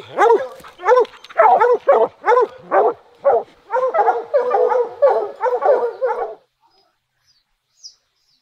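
Bear hounds barking in a rapid, repeated chop, about two barks a second with several dogs overlapping, stopping abruptly about six seconds in. A few faint bird chirps follow near the end.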